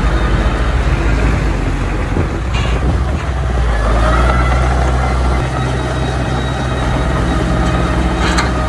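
Diesel engines of a dump truck and a crawler bulldozer running with a steady low rumble as the truck raises its bed to tip its load, with a short knock near the end.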